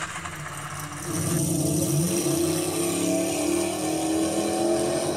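Car engine running and accelerating. It grows louder about a second in, then holds a steady note that rises slowly in pitch.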